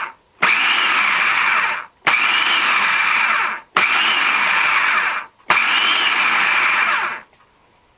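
Cuisinart food processor motor being pulsed, its dough blade spinning through dry flour, salt and olive oil. It runs in bursts of about a second and a half with short gaps: the tail of one burst at the very start, then four more, stopping about seven seconds in.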